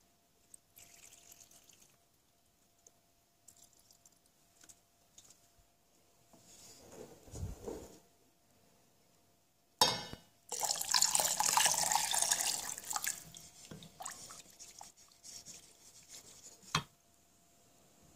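Liquid poured from a glass cup into a stainless steel saucepan: a splashing pour of about three seconds that tapers off into drips. A sharp knock comes just before the pour and another near the end.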